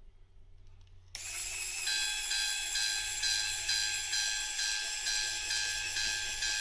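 Electronic level-crossing warning bell of a homemade N gauge crossing gate, switching on about a second in and then ringing in an even, repeating ding about twice a second as the crossing is triggered.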